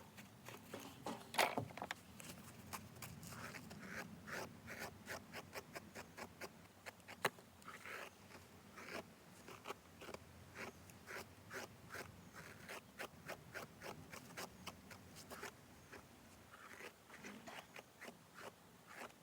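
Brushing a horse's coat: a run of short scraping strokes, about two to three a second, with a louder knock about one and a half seconds in.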